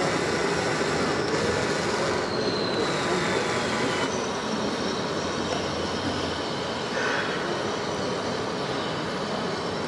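Electric drive motors and gearboxes of radio-controlled model tractors whining as they drive, over a steady noise bed; the sound changes about four seconds in.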